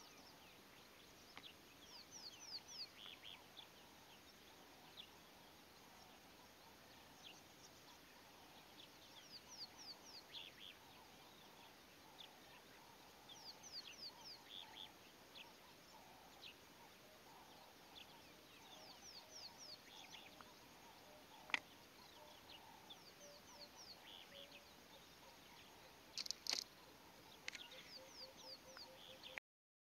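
Faint birdsong: small birds give short runs of quick, falling high chirps every few seconds. A single sharp click comes about two-thirds of the way through.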